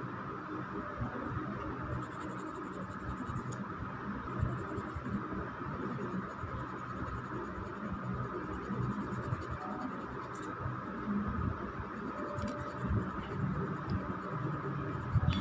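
Orange colour pencil scratching back and forth on paper, shading in a small cut-out paper heart.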